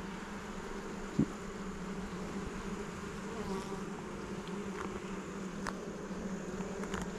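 Honeybees in an open hive buzzing in a steady, even hum, stirred up by the inspection; the beekeeper takes them to be upset. A single short knock about a second in.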